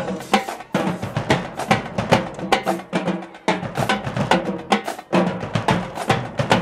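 Marching band drumline playing a steady, fast cadence, with tuned bass drums and snare drums hitting in a driving rhythm.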